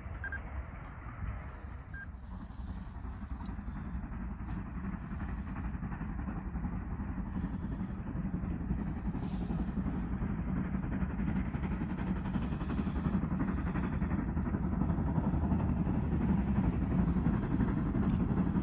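GWR steam locomotive hauling a train up a gradient, its exhaust and running noise a steady low rumble that grows louder as it approaches.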